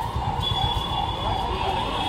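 Electronic siren warbling, its pitch rising and falling quickly over and over, with a thin steady high tone joining about half a second in, over a low rumble of street noise.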